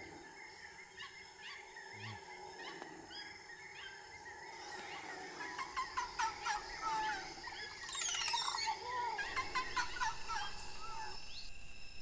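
Tropical forest ambience: birds calling over a steady high drone of insects. Loud, rapid, repeated bird calls crowd together in the second half, then everything cuts off about a second before the end.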